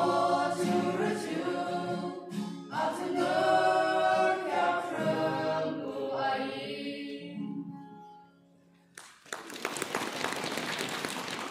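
Mixed-voice choir singing, the last chord held and fading out by about eight seconds in. After a short pause, applause starts up and carries on.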